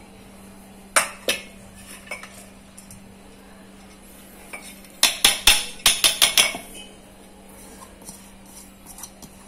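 Stainless steel kitchen vessels knocking and clinking as a mixer-grinder jar is handled and soaked urad dal is tipped into it from a steel bowl: two knocks about a second in, a quick run of sharp metal clinks around the middle, and lighter ticks near the end.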